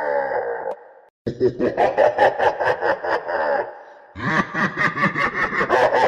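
An evil laugh sound effect: a voice laughing in quick, even 'ha-ha-ha' pulses. A laugh trails off with falling pitch right at the start, then, after a short silence, two more bouts of laughter follow with a brief pause between them.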